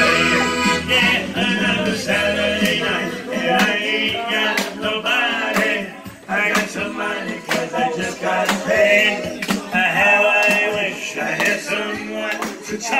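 Piano accordion playing a lively instrumental passage over a steady percussive beat, dropping off briefly about six seconds in before carrying on.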